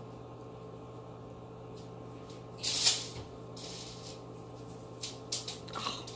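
Fingers handling a flesh tunnel at a stretched earlobe: soft rustling and a few small clicks near the end, with one short hissing rustle about three seconds in, over a steady low hum.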